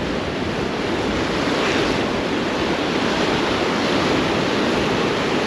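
Surf breaking on the beach with strong wind buffeting the microphone: a steady, even rushing noise.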